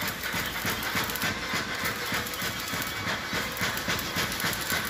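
Electric arc welding on steel: the arc crackles and sizzles steadily.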